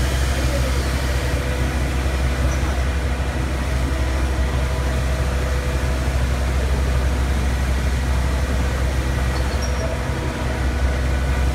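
Steady low rumble of heavy diesel engines running, from the concrete mixer trucks and site machinery, with a few faint steady tones above the rumble.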